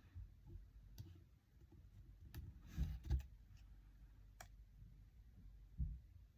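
A few scattered light clicks and dull taps from craft materials and tools being handled on a desk, with quiet gaps between them.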